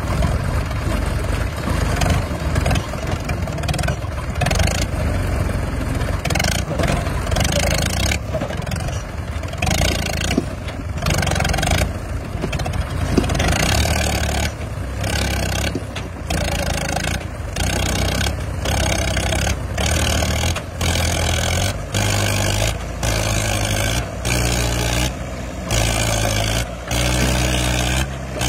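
Two old tractor diesel engines, a Mahindra and a Ford, running hard under full load in a tug-of-war, rear tyres spinning and digging into sand. From about halfway through, the sound rises and dips roughly once a second as the engines labour.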